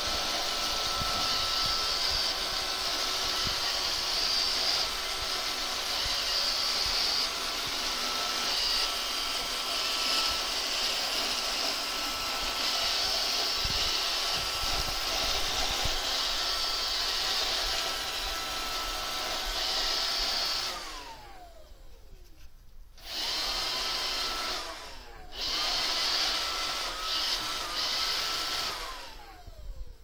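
iRobot Roomba 570 robot vacuum cleaning carpet: its motors give a steady whirr with a high whine. About two-thirds of the way through, the motors wind down with a falling whine. They then start and stop twice more, spinning down again near the end.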